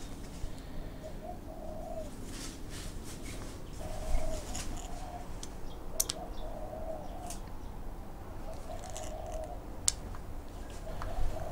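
A hen's soft, low clucking murmur in irregular bouts about a second long, repeating throughout, with a couple of sharp clicks, one near the middle and one near the end.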